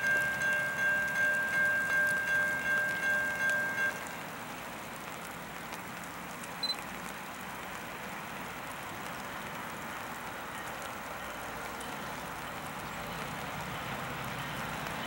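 Railroad grade-crossing warning bell ringing in quick even strokes, about two a second, for an approaching train; it stops about four seconds in. After it comes a steady hiss, with a faint short chirp about halfway through.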